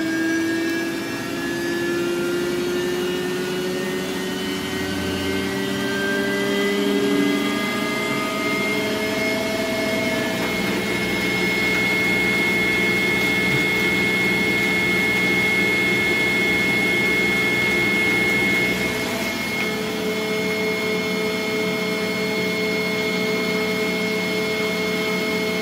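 Washing machine on its spin cycle: the motor and drum whine rises steadily in pitch as the drum speeds up, then holds at a steady speed.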